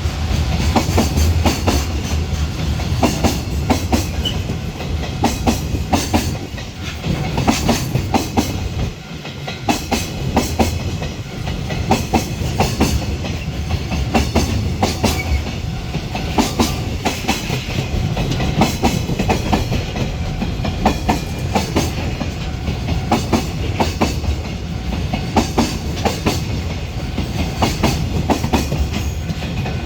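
Freight train of container wagons rolling past at close range: a continuous rumble with a steady clatter of wheels clicking over the rail joints.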